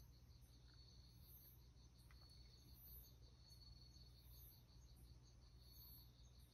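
Near silence: faint high-pitched insect chirping, an even pulse of about five a second, with a higher trill recurring every second and a half or so.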